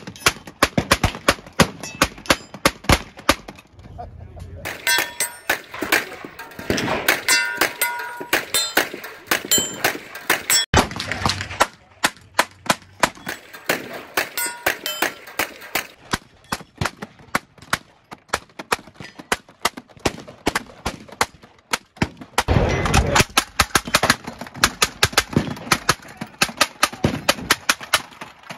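Hand-cranked M1862 Gatling gun, converted to .45 Long Colt, firing long strings of shots as the crank is turned, at about four to five shots a second.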